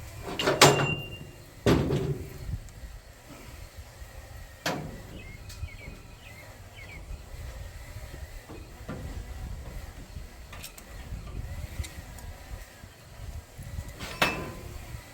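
Tools being handled in a plastic tool case: a few separate knocks and clatters, the loudest two in the first couple of seconds and another near the end, some with a short metallic ring.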